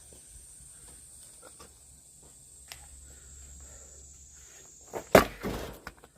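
Axe splitting firewood: one loud chopping strike about five seconds in, with a few smaller knocks right after it.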